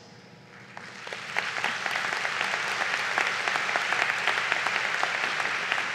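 Audience applauding: the clapping swells in about a second in and holds steady as a dense patter of many hands.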